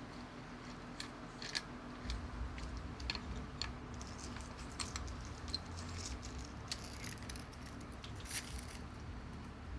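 Scattered small clicks and light metallic ticks of bicycle parts being handled as the rear cassette is worked off the hub, over a faint steady hum.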